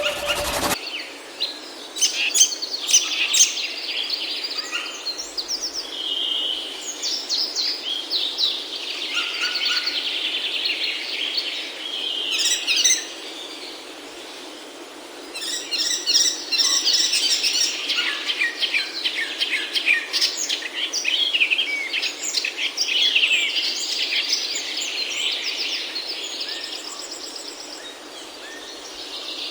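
Nestling birds begging for food with rapid, high, overlapping chirps, in two long bouts with a short lull about halfway through.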